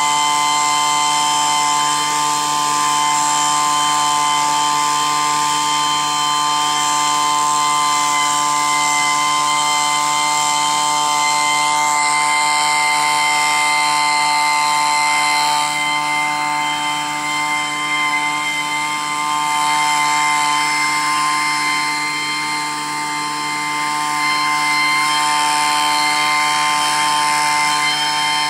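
Handheld two-stroke vacuum leaf blower running steadily with a constant pitched drone, blowing diatomaceous earth powder. Its level dips slightly a couple of times in the second half.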